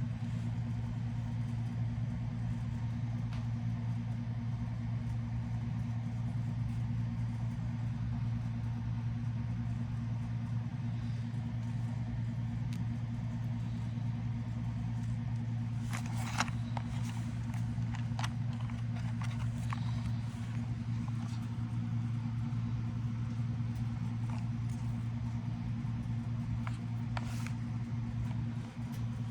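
A steady low hum, with a cluster of sharp clicks and crackles about halfway through and another click near the end.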